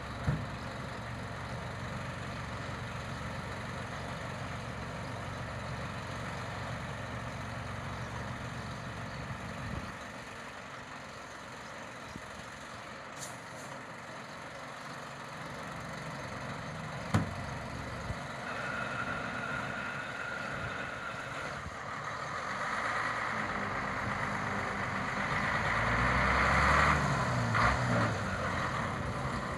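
FAP 13 fire truck's engine running as the truck drives slowly toward the listener, getting louder in the last third, with two sharp clicks, one right at the start and one just past halfway.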